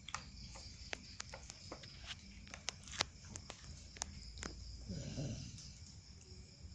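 A young child eating porridge: scattered small clicks and smacks of eating, with a brief babbling sound from the child about five seconds in.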